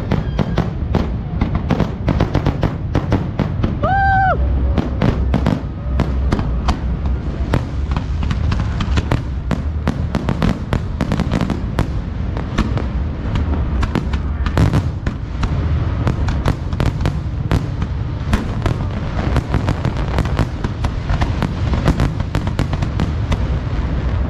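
Fireworks display: a dense, unbroken run of bangs and crackling bursts over a deep rumble, with a short rising-and-falling tone about four seconds in.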